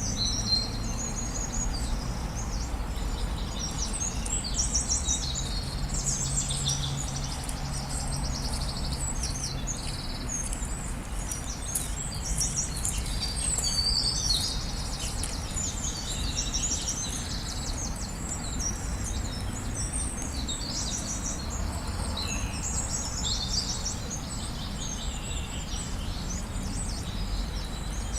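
Many songbirds chirping and trilling at once in a dense, continuous chorus, over a steady low background rumble.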